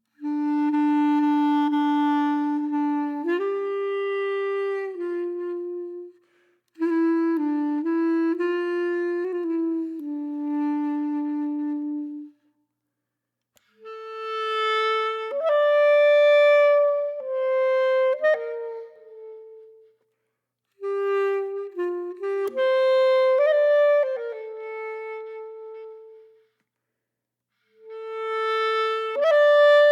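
Background music: a slow solo melody on a woodwind instrument, played in phrases of about five or six seconds with short pauses between them.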